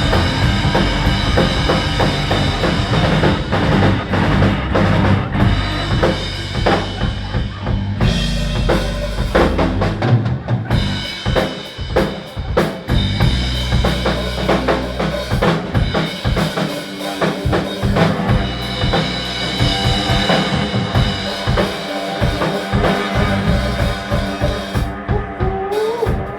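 Loud live rock music from a band on stage, with a pounding drum kit and heavy bass, recorded on a phone in the room. Near the end a short slide rises in pitch above the band.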